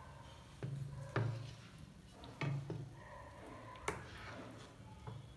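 Wooden spatula knocking and scraping against a metal kadai while scooping thick butter chicken gravy, a soft knock every second or so.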